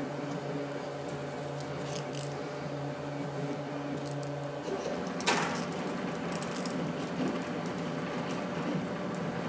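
A steady machine hum that changes tone about halfway through, with light rustling and ticking as wires are handled and one sharp click a little after the change.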